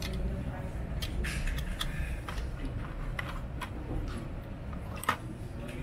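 Irregular small clicks and taps, about ten of them, the sharpest about five seconds in, over a low steady hum.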